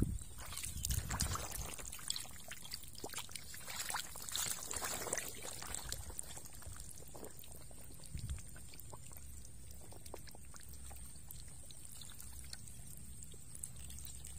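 Many small stranded fish flapping and wriggling in wet mud and shallow water: a patter of wet clicks and small splashes, busiest in the first half, over a faint trickle of water.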